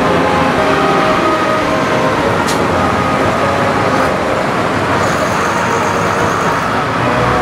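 Tractor engines running steadily.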